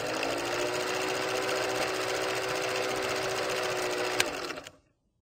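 Film projector sound effect: a rapid, steady mechanical clatter with a motor hum that rises slightly at the start. There is one sharp click about four seconds in, and the sound fades out just before the end.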